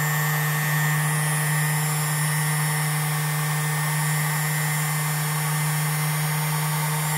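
Electric cutter motor of a Jensen Micro-Dial key code machine running steadily with a constant hum, without cutting into the key.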